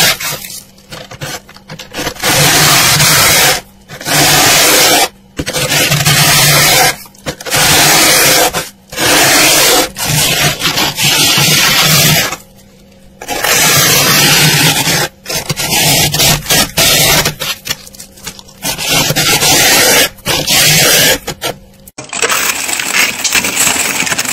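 Thick freezer frost being scraped by gloved fingers in repeated strokes of about a second each, with short pauses between them. Near the end a fork scrapes into the frost.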